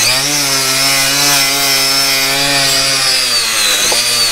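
Cordless angle grinder spinning a nylon cup brush against a wooden board, its motor whine wavering slightly in pitch as the brush is pressed on. This is the low-speed setup for brushing light crusts of lime off timber beams.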